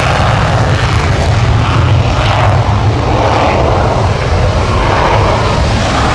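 Dassault Rafale's twin Snecma M88 turbofans at full afterburner during takeoff and lift-off: loud, steady jet noise with a strong low rumble.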